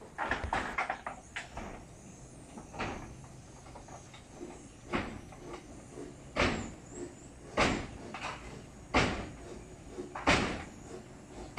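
Faint steady hiss of a small handheld butane torch, with a series of short knocks every second or so.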